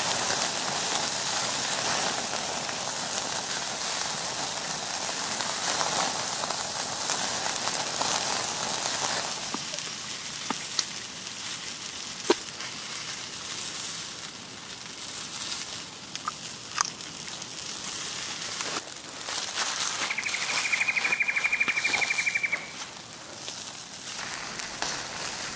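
Burger patties sizzling on a grill grate over flaming coals, with the fire crackling; the loud sizzle lasts about nine seconds. It then drops to a quieter hiss with scattered sharp crackles and clicks.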